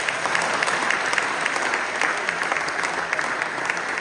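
An audience applauding, many hands clapping at once at a steady level.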